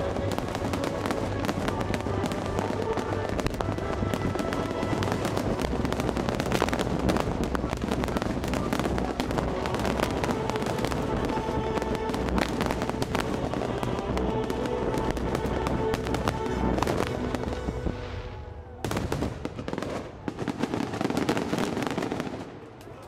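Fireworks finale: a dense barrage of shells bursting and crackling over an orchestral show soundtrack. A little after two-thirds of the way in, the barrage suddenly drops away, leaving a few last bangs that die out.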